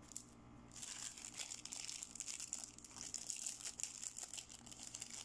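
Clear plastic packaging on a toy makeup brush crinkling as it is handled, starting about a second in as a dense, continuous crackle.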